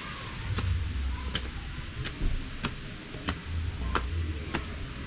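Sharp clicks at a steady pace, about three every two seconds, over a low rumble.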